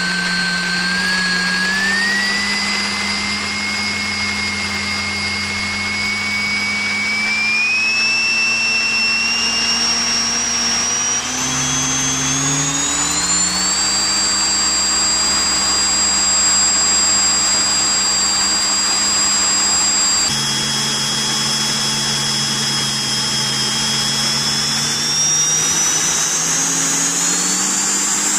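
Electric ducted fan inside a 3D-printed turboshaft model running with a high whine that climbs in steps as the throttle is raised, over a lower steady hum. The pitch drops suddenly about twenty seconds in, then climbs again.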